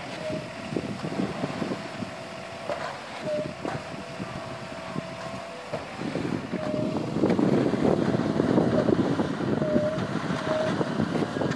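A motor running steadily with a thin held whine, while wind rumbles and crackles on the microphone, stronger from about halfway through.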